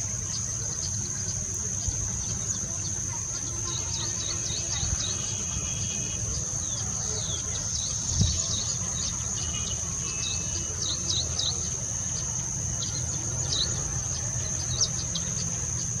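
A steady high-pitched insect drone with many short, quick bird chirps scattered over it, busiest from about four seconds in, above a low rumble.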